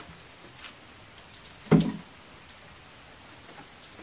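Handling noise at a lawn mower engine: a few faint clicks and taps, and one short, dull thump a little under two seconds in.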